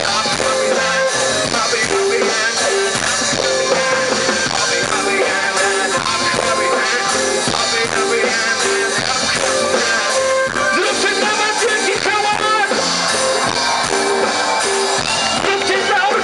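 Loud live band music: a full band with double bass, electric guitar, strings, keyboards and drums playing a steady, rhythmic passage with a repeating note figure.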